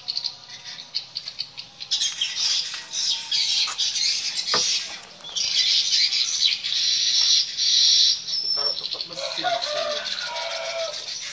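Birds calling: a dense, shrill, high chatter from about two seconds in until about nine seconds, with lower, falling calls near the end.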